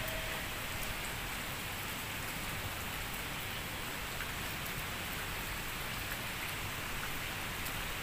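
Steady rain falling, an even hiss that holds at the same level throughout.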